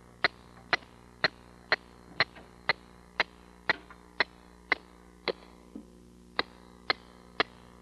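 Hammer blows at a steady pace of about two a second, each a sharp single strike, with a brief break a little past the middle.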